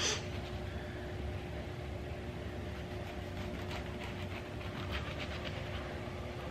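Small kitchen knife slicing a lemon on a paper towel over a countertop: a run of faint soft cuts and taps in the second half. Under it a steady low hum runs throughout.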